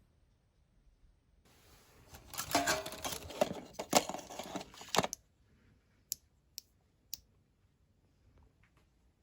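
Handling noise: a few seconds of rustling and clattering with several sharp clicks, then three short clicks about half a second apart.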